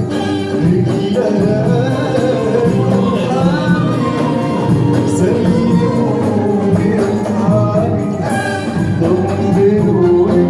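Live orchestra music: a singer over keyboard and other instruments, with jingling tambourine-like percussion.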